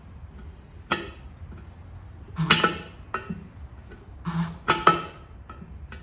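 Sharp metallic clanks of hand tools working against a steel tractor wheel rim while a tire bead is levered on by hand. There are five or six clanks, single or in quick clusters, the loudest near the middle and near the end.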